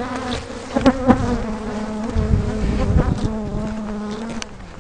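Agitated, defensive swarm of Africanized honey bees buzzing close around the microphone: a steady hum of overlapping wingbeat tones. A few short knocks sound about a second in and near the three-second mark.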